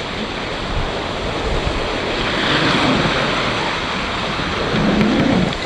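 Water rushing along the hull of a sailing yacht under way, with wind on the microphone; the rush swells into a louder hiss of wash about two and a half seconds in.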